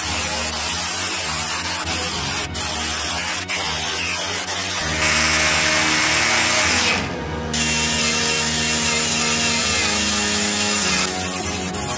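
Compressed-air orbital sander running against sheet steel, a steady loud hiss with sanding, stripping rust and old paint from a mini-truck's bed panel. The sound cuts out briefly about seven seconds in, and near the end it changes as the work switches to an air die grinder with a small abrasive disc.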